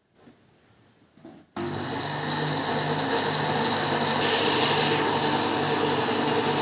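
An electric kitchen mixer's motor switches on about a second and a half in and runs steadily, mixing the cake batter.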